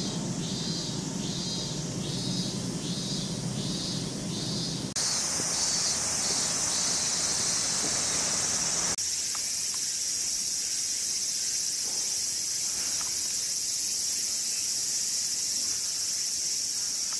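High-pitched buzzing of summer insects, steady throughout. For the first few seconds one insect call pulses a little over once a second; the sound changes abruptly in loudness and tone about five and nine seconds in.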